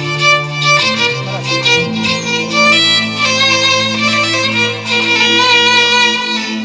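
Instrumental Arabic music introduction: a violin melody over held bass notes, without singing.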